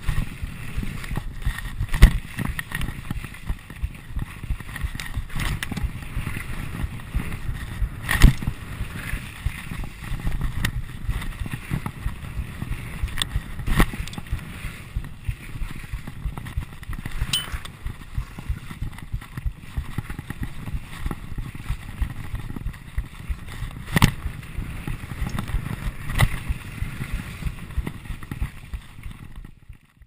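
Mountain bike riding fast down a rough gravel trail, heard from on the bike: a constant low rumble of tyres and wind with steady rattling and crunching over stones, and a few loud sharp knocks from hard bumps. It cuts off at the very end.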